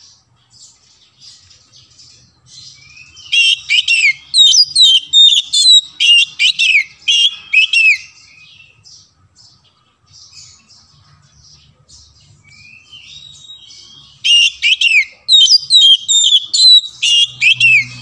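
Oriental magpie-robin (kacer) singing: two long runs of loud, rapid whistled phrases with sweeping notes, one starting about three seconds in and another near the end, with softer high chips and twitters in between.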